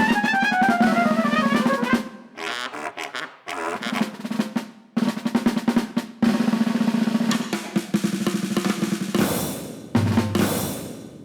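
Snare drum playing rolls in several bursts with short pauses between them. A pitched tone falls steadily during the first two seconds, and two hissing swells come near the end.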